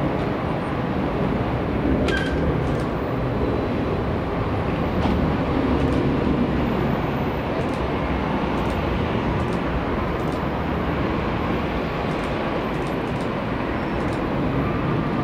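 Jet airliner engines running: a loud, steady noise with no clear rise or fall.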